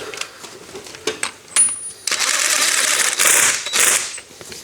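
Parkside cordless impact wrench hammering for about two seconds as it runs a bolt back in, starting about two seconds in after a few sharp clicks.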